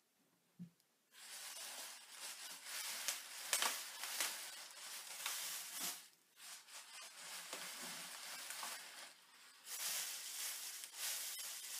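Plastic bags rustling and crinkling as the halves of a cut ballistic gel block are lifted apart and set down on them, starting about a second in, with a few sharper crackles.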